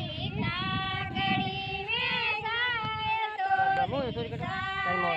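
Female voice singing a Marwari wedding folk song (vivah geet), long held notes with a wavering pitch.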